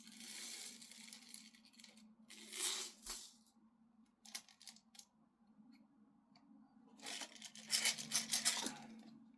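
Steel BBs pouring and rattling into an air rifle's BB reservoir in three hissing bursts, with a few single BBs clicking in between.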